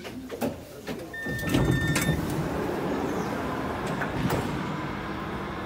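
Copenhagen Metro train's door-closing warning, a steady beep about a second long starting about a second in, followed by a louder steady rush of train and door noise that holds to the end.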